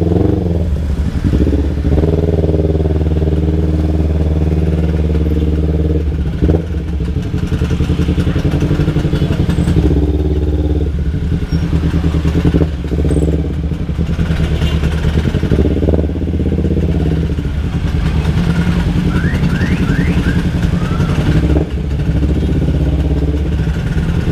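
Kawasaki Ninja 250 FI parallel-twin engine idling steadily and crawling along in stop-and-go traffic, with other motorcycles' engines running close by.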